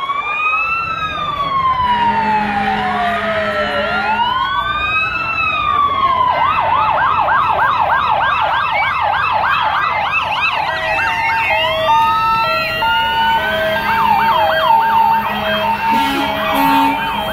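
Several fire truck sirens sounding at once: slow rising and falling wails, switching to a fast yelp about six seconds in, then a high-low two-tone alternating about once a second from about eleven seconds on. A low steady tone sounds twice, about two seconds each.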